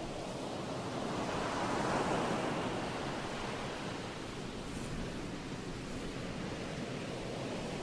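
Ocean surf washing steadily, with one wave swelling up and falling away about two seconds in.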